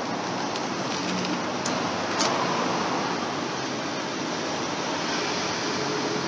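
Steady rushing background noise, even and hiss-like, with a few faint clicks about one to two seconds in.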